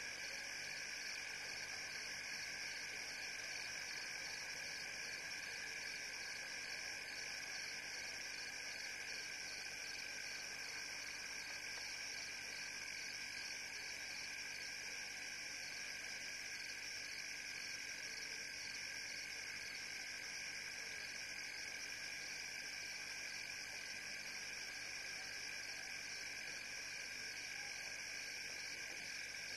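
Steady night-time chorus of frogs and insects: an unbroken high trilling in two pitch bands, with no pauses or single calls standing out.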